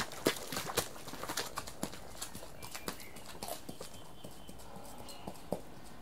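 Bare, unshod horse hooves walking through puddles, splashing and clopping. The steps come close together at first, then thin out and grow fainter after about two seconds, with a few scattered steps near the end.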